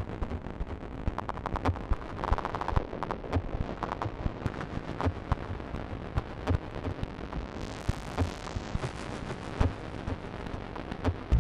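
Experimental modular-synthesizer music: irregular crackling clicks over a rumbling noise bed, with a short buzzy tone about two seconds in and a hissing noise swell around eight seconds in.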